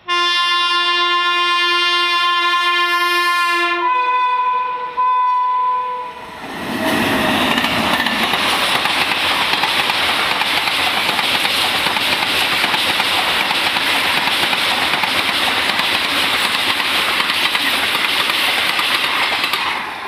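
Horn of an Indian Railways express train's locomotive sounding one long blast of about four seconds, then two shorter blasts at a different pitch. From about seven seconds in, the train runs past at high speed, its coaches making a steady loud rush of wheels on rails.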